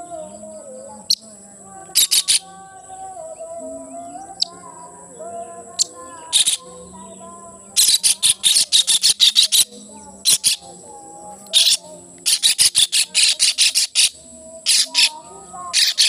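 A white-throated kingfisher tangled in a net giving bursts of harsh, rapid rattling calls, several clusters of them with pauses between, as it struggles. Behind it, a voice chanting pujian from a mosque loudspeaker.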